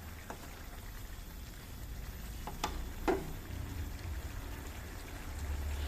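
A saucy stir-fry bubbling and sizzling in a pan on the stove as the liquid cooks down. A few sharp clinks of a spatula against the pan sound as it is stirred.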